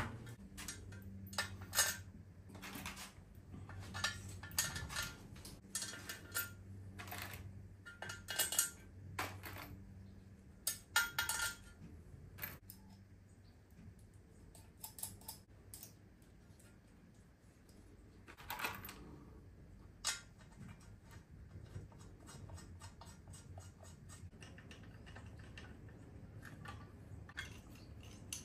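Scattered light metallic clinks and taps as cylinder-head bolts, washers and hand tools are handled and set on an aluminium cylinder head, over a faint steady low hum.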